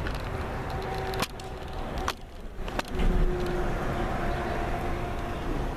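Steady low rumble of a freight train approaching head-on, with a faint steady tone that comes and goes and a few sharp clicks around the middle.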